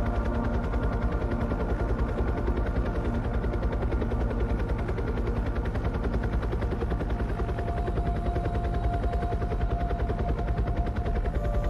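Helicopter in flight: the rotor blades give a rapid, even chop, with a few steady tones from the engine over it.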